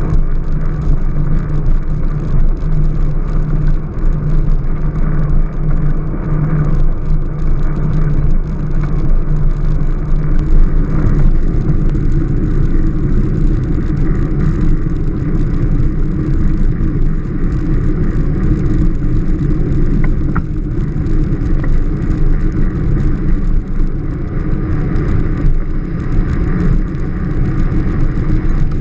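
Strada Carbon velomobile riding along: a steady, loud rumble of tyres and drivetrain carried through the carbon body shell, its low hum shifting in tone about ten seconds in.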